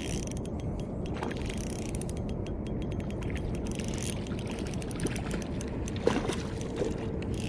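Spinning reel being cranked fast, its gears and mechanism clicking in a rapid run, as a hooked rainbow trout is reeled in. A splash from the trout thrashing at the surface about six seconds in.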